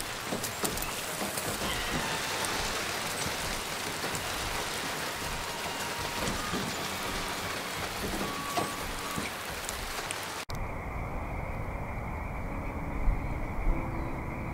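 Heavy rain falling steadily as a dense hiss, which cuts off abruptly after about ten seconds. A duller, muffled low rumble follows, with soft music notes coming in near the end.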